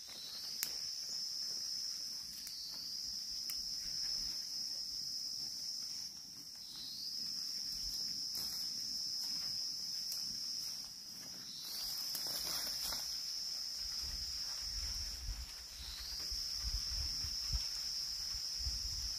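Steady, high-pitched insect drone that dips in pitch and climbs back every four or five seconds. Faint knocks sound underneath, with a low rumble in the second half.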